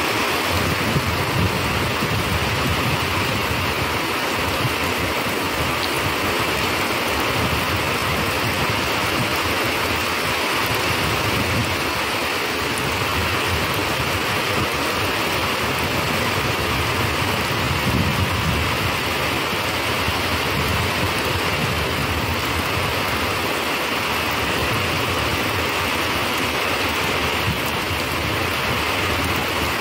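Steady rain falling, a constant even hiss, with an uneven low rumble underneath.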